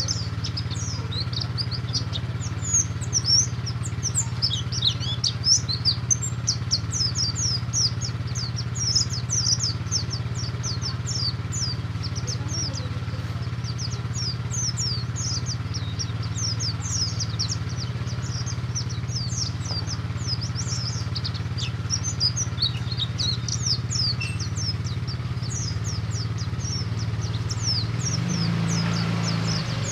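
Buxtoni white-eye (pleci) singing a fast, unbroken stream of high, thin down-slurred chirps, the 'ngalas' song style. A steady low hum runs underneath and grows a little louder near the end.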